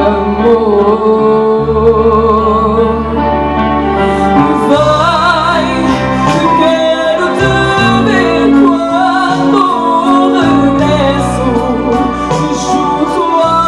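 A song: women's voices singing with vibrato over an instrumental accompaniment, with held bass notes that change every second or two.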